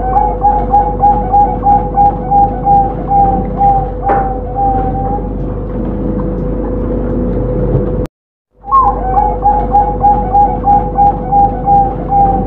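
Perkutut (zebra dove) cooing a long run of quick, evenly spaced notes for about five seconds. The sound cuts out briefly about eight seconds in, and a second run of cooing starts. A steady hum runs underneath.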